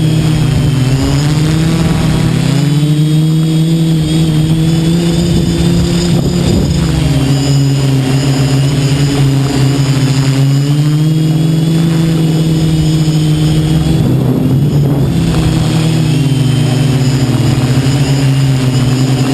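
Multirotor quadcopter's brushless motors and propellers buzzing steadily in flight, the pitch wavering slowly up and down as the motor speed shifts.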